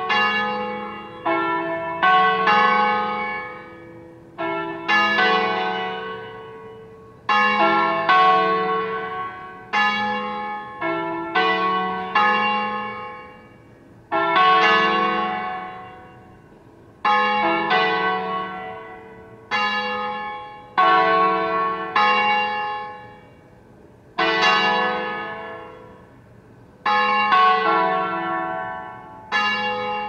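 Church tower bells ringing: several bells of different pitch struck in irregular clusters of a few strokes, each stroke ringing out and fading over a second or two before the next cluster.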